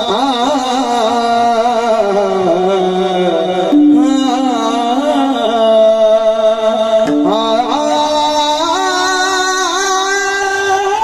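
A male voice singing a Warkari kirtan melody (chal) in long held notes with wavering ornaments and slides, over steady sustained accompaniment; the phrase breaks and starts afresh about four and seven seconds in.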